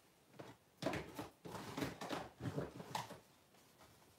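Someone rummaging through a pile of toys: an irregular run of rustling and clattering that starts about a second in and stops after about two seconds.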